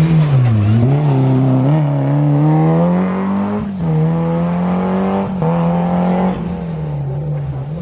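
Peugeot 205 rally car's four-cylinder petrol engine driven hard, its pitch dropping sharply and climbing again with gear changes, then easing off and getting quieter near the end.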